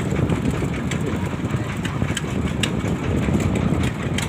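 Fishing boat's engine running steadily, with a few light clicks over it.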